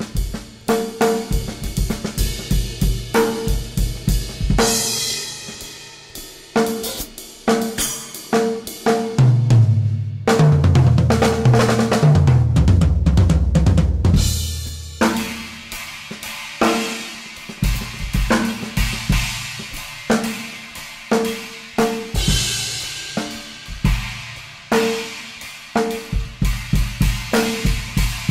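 Instrumental music: a drum kit groove of rapid strikes with cymbals and hi-hat, with a short mid-pitched note that keeps recurring. A heavy low bass passage swells in from about nine seconds and drops out near fifteen seconds.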